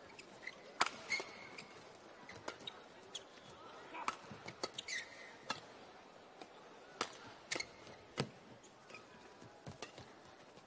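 Badminton rackets striking a shuttlecock in a men's doubles rally, as irregular sharp cracks a second or so apart, with shoes squeaking on the court floor in between.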